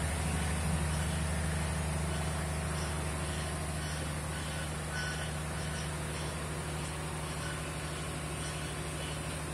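Sugarcane crushing mill running: a steady low hum of its electric motors and reduction gearboxes driving the roller mill.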